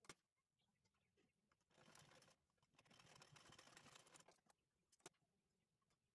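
Faint rustling of fabric and braided trim being handled and positioned under a sewing machine's presser foot, in two short stretches, with a sharp click at the start and another about five seconds in.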